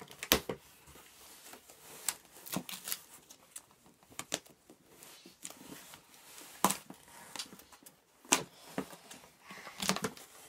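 Hands working a doll loose from its cardboard display box and packaging ties: irregular rustling, scraping and clicking, with a few sharper snaps.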